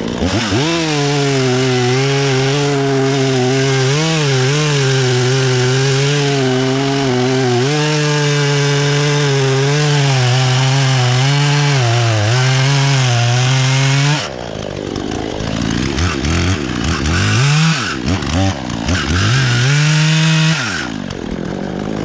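Husqvarna 120 Mark III two-stroke chainsaw running at full throttle through a cut in a log, its pitch dipping now and then as the chain loads up. About fourteen seconds in it drops off, then revs up and down several times before falling back near the end.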